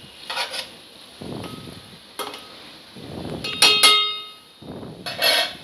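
A metal spoon stirring frying vegetables in a metal pot: several short scraping strokes, and a ringing clang about two-thirds of the way through as it knocks against the pot.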